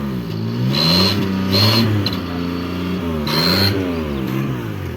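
Maruti 800's three-cylinder petrol engine revved in short blips, its pitch rising and falling about four times. A high whistle with a hiss from the turbo whistle fitted in the exhaust comes in on three of the revs.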